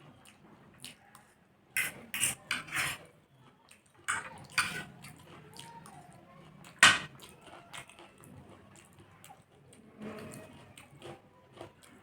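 Close-miked eating sounds: wet mouth noises of chewing food, broken by scattered short clicks and taps, a cluster about two to three seconds in and the sharpest about seven seconds in.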